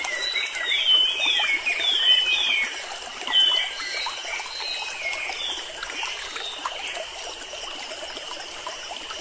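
Small songbirds calling in quick, short sliding chirps over the steady trickle of a stream. The chirps come thick and loud for the first few seconds, then thin out to a few faint calls while the water runs on.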